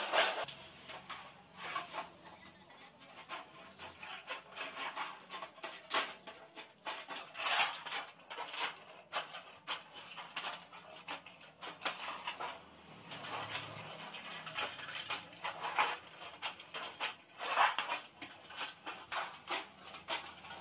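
Hand tin snips cutting thin sheet metal: a run of short, uneven snipping clicks as the blades close, with the loose sheet now and then giving a louder metallic rattle as it flexes.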